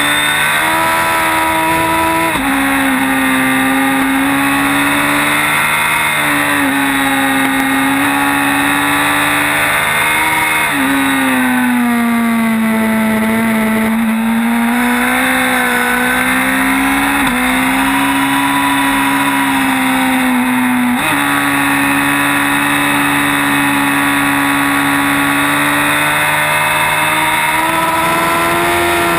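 Sport motorcycle engine at speed on a racetrack, heard from a camera on the bike: the engine note climbs and falls through corners and jumps sharply in pitch every few seconds at gear changes and throttle changes, under a steady rush of wind.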